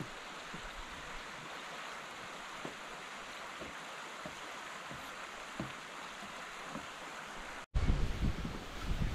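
Shallow river running over rocks: a steady rushing of water. Near the end it cuts off for an instant and gusts of wind rumble on the microphone.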